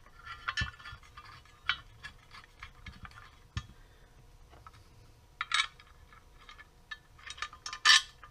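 Scattered light metallic clinks and clicks of bolts and a regulator rectifier being handled and fitted by hand to a powder-coated Ducati ST2 headlamp bracket. The two loudest clinks come about five and a half and eight seconds in.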